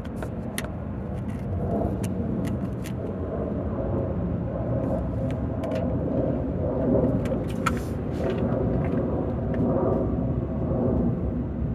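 2002 Acura TL's 3.2-litre V6 being cranked over by its starter motor without firing: a steady cranking sound with scattered sharp clicks. It is a crank-no-start, with the battery fully charged.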